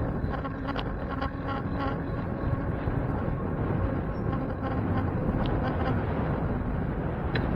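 Steady rumble of wind and traffic noise heard while riding a bicycle, with a steady hum from a vehicle that fades a few seconds in and a few faint clicks.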